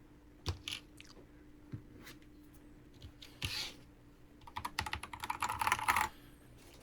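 Typing on a Keychron K10 HE magnetic-switch keyboard: a few separate keystrokes, then a quick run of key presses from about four and a half to six seconds in.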